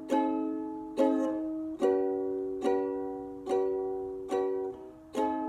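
Ukulele strummed in single down strokes, a little more than one a second, each chord ringing out and fading before the next. The chord changes about two seconds in, as the player works through a D, A, G and B minor progression.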